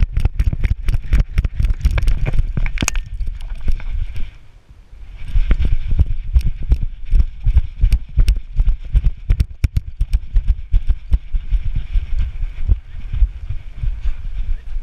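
Back-mounted GoPro harness on a running dog, knocking and rattling in a rapid galloping rhythm with each bounding stride over a low rumble of wind on the microphone. The knocks die down briefly about four seconds in, then start again.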